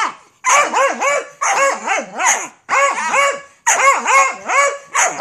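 Dogs barking in a play-fight between a beagle and a Labrador puppy: a rapid run of high-pitched barks, about three a second, each rising and falling in pitch.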